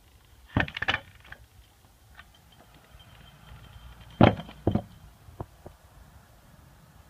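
Pneumatic nail gun run off scuba diving gear, firing: a quick cluster of sharp snaps about half a second in, then two loud snaps about four seconds in, followed by a few lighter knocks.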